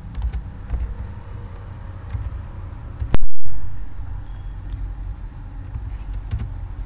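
Computer keyboard keys clicking now and then over a low steady rumble. About three seconds in there is one sharp digital click and a brief dropout of the audio.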